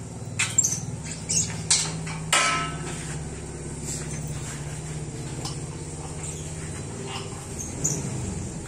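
Steel roller chain and drill-rig frame parts being handled during disassembly: a few sharp metal clinks and clanks, the loudest with a brief ring about two and a half seconds in, another near the end. Under them runs a steady low mechanical hum.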